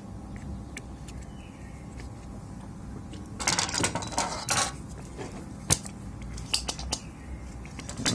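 Tools and small metal parts handled on a workbench: scattered sharp clicks and taps, with a short burst of rattling and scraping about three and a half seconds in.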